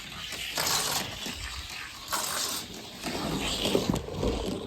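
A die-cast toy car, the Coca-Cola Studebaker, rolling down a plastic orange track. Its wheels make a rough, uneven hissing rumble that surges and fades a few times, with small rattles.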